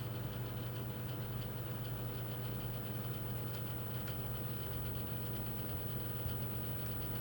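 Hot air rework station blowing steadily, a continuous fan hum that holds level throughout.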